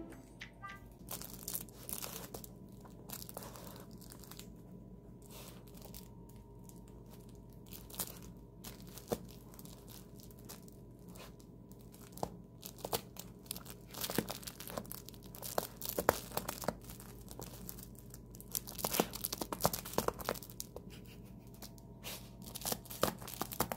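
Crinkling and rustling of a fabric nose-work toy and cloth as a Maltese dog noses and paws at it to dig out a treat. The rustles come in irregular bursts, sparse at first and busier in the second half.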